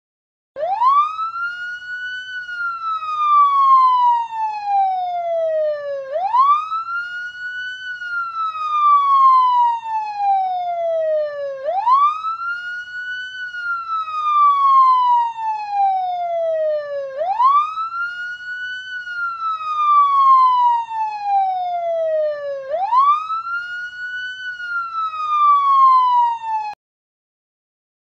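Police-siren wail from a sound unit, played through a small cylindrical portable speaker. The pitch sweeps up quickly, then falls slowly, five cycles about five and a half seconds apart, and cuts off suddenly near the end.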